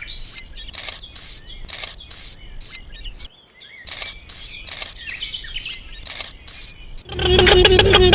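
Birds chirping amid a series of sharp clicks. About seven seconds in, a loud, sustained pitched sound with rich overtones takes over.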